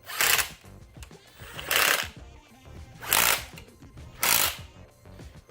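Socket ratchet tightening a bolt: four short bursts of ratchet clicking, roughly a second and a half apart.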